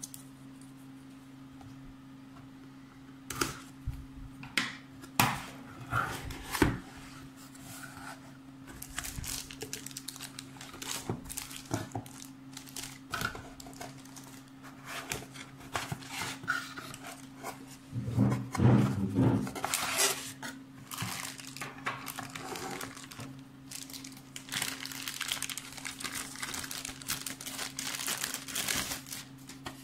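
Unboxing handling: a cardboard box knocked and opened and its contents lifted out, then plastic bags and wrap crinkling as a router and its power adapter are unpacked. A few sharp knocks come about four to seven seconds in; the crinkling is densest over the last third.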